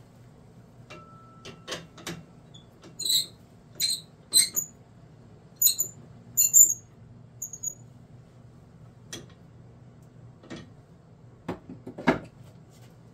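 Wood lathe at rest, its faceplate and glued-up white-pine bowl blank turned slowly by hand: about six short, high squeaks in the middle, with light knocks and clicks before them and a few more near the end.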